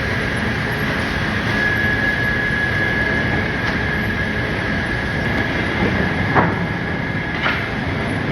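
Sawmill machinery running steadily with a rumble and a constant high-pitched whine, with two short knocks about a second apart near the end.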